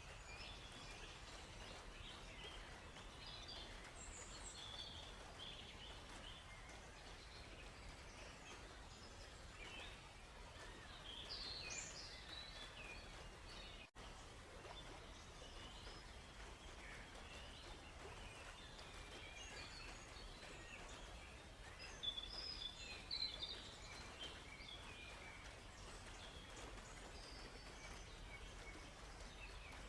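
Many birds chirping and calling in a forest over a soft, steady hiss of gently flowing river water; the calls come thickest about eleven seconds in and again a little after twenty seconds. The whole sound drops out for an instant about halfway through.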